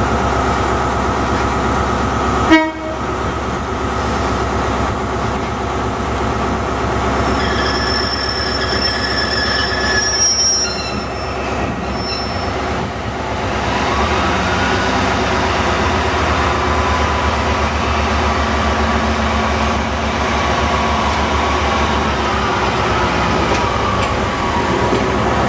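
Pacer diesel railbus passing close at low speed, its underfloor diesel engine running with a steady droning note. There is a single sharp clank about two and a half seconds in, thin high wheel squeal from about a third of the way through to the middle, and the engine note rises soon after.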